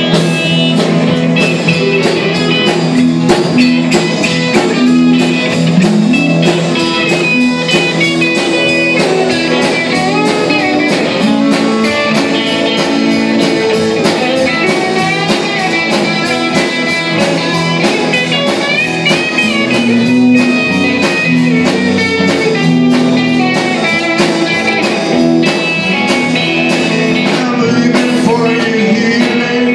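Live band playing a blues-tinged rock and roll song: electric and acoustic guitars over drums keeping a steady beat, with a singer's voice.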